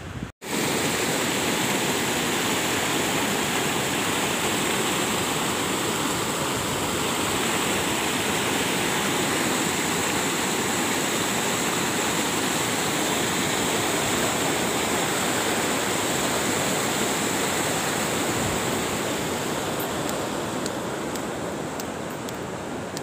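Fast water rushing steadily through the concrete culverts of a river spillway, an even, loud sound that starts abruptly just after the beginning and eases slightly near the end.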